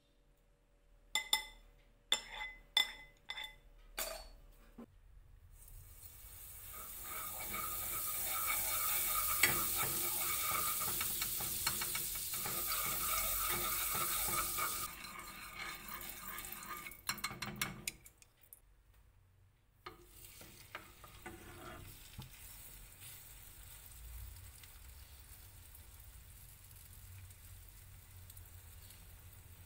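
Chopsticks clicking sharply against a ceramic bowl about six times. Then hot fat sizzling loudly in a non-stick frying pan as it is stirred with chopsticks, dropping off after about ten seconds. After a short break, a quieter steady sizzle as the egg-soaked bread fries.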